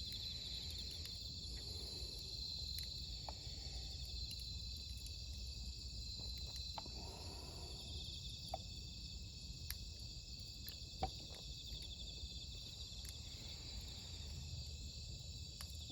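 A steady chorus of singing insects, a high pulsing trill, over a low background hum, with occasional faint ticks.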